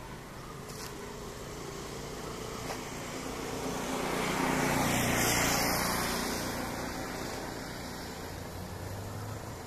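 Jet engines of an Airbus A320neo-family airliner running at taxi power as it rolls past. The steady noise swells to its loudest about halfway through, then eases off.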